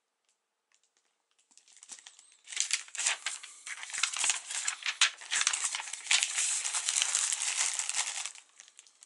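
Plastic postal mailer bag crinkling and rustling as it is handled and turned over, starting about two and a half seconds in and stopping shortly before the end.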